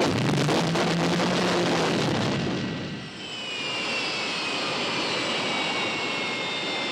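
Sound effect of the original Batmobile: a rumbling engine for about two seconds, then a high turbine-like whine that slowly falls in pitch.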